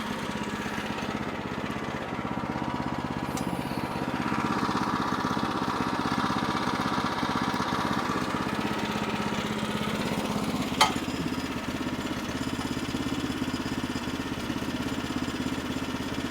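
Gas engine of a Woodland Mills portable bandsaw mill running steadily while sawing a jack pine log. The cutting noise grows stronger for several seconds a few seconds in. One sharp click comes near the end.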